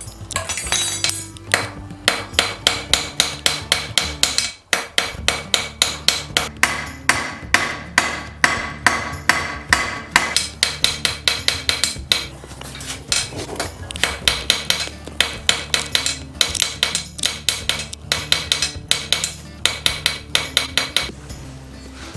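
Blacksmith's hammer striking hot horseshoe steel on an anvil in quick, even blows, about three a second, each with a ringing metallic tone, in runs broken by short pauses. The work is forging a set down on the horseshoe's end to draw out a hinge pin.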